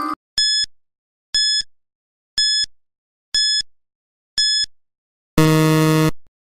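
Quiz countdown-timer sound effect: five short high beeps about one a second, then a longer, low buzzer about five and a half seconds in that marks time up as the count reaches zero.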